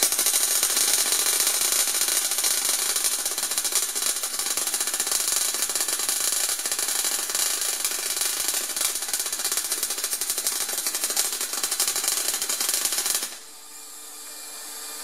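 MIG welder arc crackling steadily as it lays a weld bead, with the shielding gas flowing. The arc stops suddenly about 13 seconds in.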